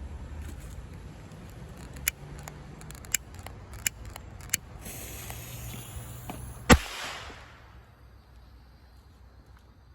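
Firecracker set off: a few sharp clicks, then a fizzing hiss of the burning fuse for about two seconds, then one loud bang that dies away quickly.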